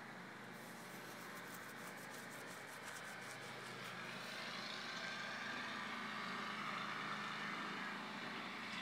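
Steady outdoor rushing noise with a faint low hum, growing a little louder about halfway through.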